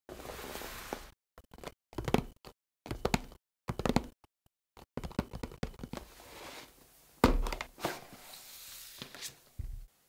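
A series of short thunks and taps as a cardboard product box is set down and handled on a cutting mat. The heaviest thud comes about seven seconds in, followed by lighter rustling as the lid is opened.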